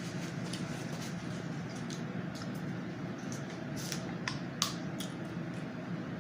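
Small mouth clicks of someone drinking water, a few sharper ones about four seconds in, over a steady low hum.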